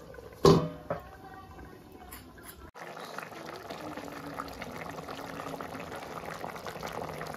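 A steel lid clanks onto an aluminium pan about half a second in. From about three seconds in, a fish and cauliflower curry bubbles steadily at the boil in the open pan.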